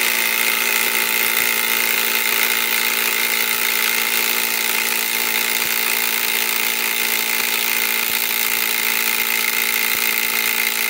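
Kobalt 24-volt right-angle impact wrench hammering steadily without a break on a 10-inch lag bolt in wood; the bolt does not break loose.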